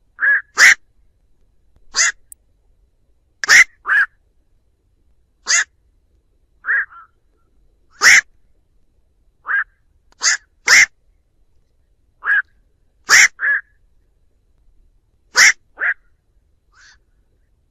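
Black-crowned night heron calling: short single calls, often in quick pairs, one every second or two, with nothing else heard between them.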